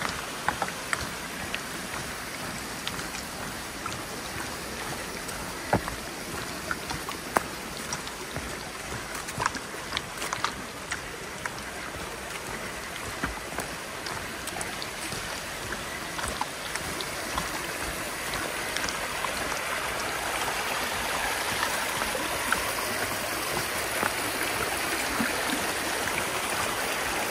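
Mountain stream rushing and splashing over rocks, a steady wash that grows a little louder in the second half, with scattered short sharp clicks through it.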